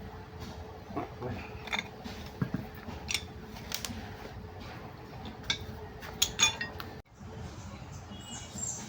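Metal tools and parts clinking and tapping in irregular sharp clicks over a faint steady hum, during work on a rack and pinion. About seven seconds in the sound drops out abruptly, then picks up again more quietly.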